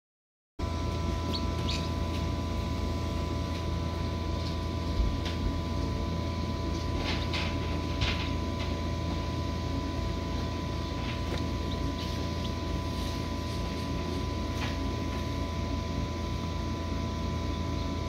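Egg incubator running with a steady hum, with a few short peeps from newly hatched chicks inside it, mostly in the first half.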